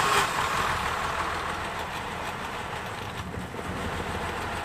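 Cadillac CTS 3.6 L VVT V6 running on its first start after a timing-chain replacement and valve job, pre-oiled beforehand. It is loudest just after firing and eases within a couple of seconds into a steady idle.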